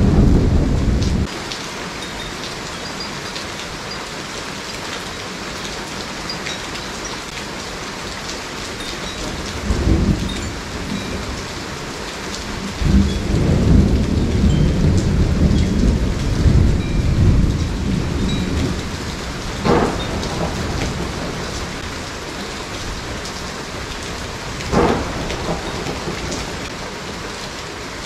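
Tropical thunderstorm: steady rain falling throughout, with thunder. A loud rumble dies away about a second in, a short clap comes near ten seconds, a long rolling rumble runs from about thirteen to eighteen seconds, and two sharper cracks come around twenty and twenty-five seconds.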